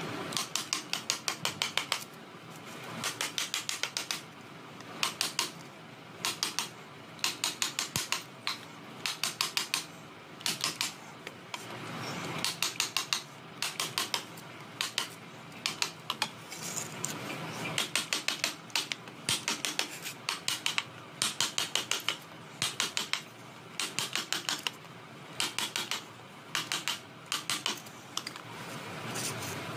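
Steel chisel striking rapidly into a wooden horse carving: quick bursts of sharp clicks, five to eight strikes in each, repeated every second or two, with quieter scraping between the bursts.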